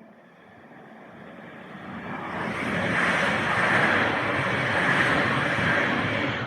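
A train passing: a rushing rumble that builds over about two seconds, stays loud for about three seconds, then begins to fade.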